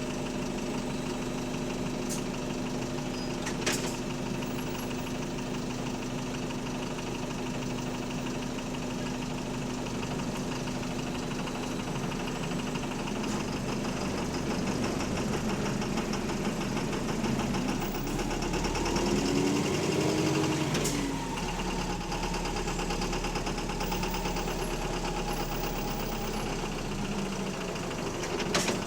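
Bus diesel engine running with a loud rod knock, the knocking typical of a worn connecting-rod bearing. About two-thirds of the way through, the engine note rises and then falls again as the bus pulls away. Two sharp clicks stand out, one early and one near the end.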